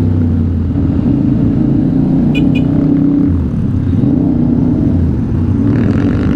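A CFMOTO 450SR's parallel-twin engine running at a steady road cruise, heard from the rider's seat, with a brief dip in engine note about three and a half seconds in. Two short high beeps sound about two and a half seconds in.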